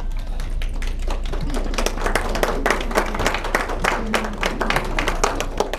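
Audience clapping and applauding, a dense patter of many hand claps.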